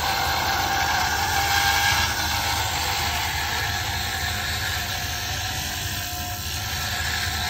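Small benchtop wood lathe running steadily while a square roughing cutter shaves the spinning pen blank, rounding it over: an even motor hum under a continuous scraping hiss of the cut.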